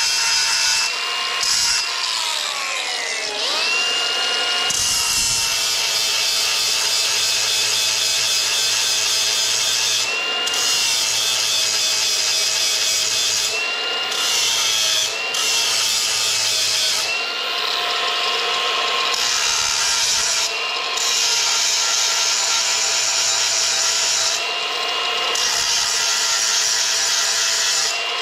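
An angle grinder runs with a steady high whine as its wheel grinds the carbide teeth of a stump grinder's cutter wheel. The grinding comes in passes broken by short gaps. About three seconds in, the motor's pitch drops and climbs back up.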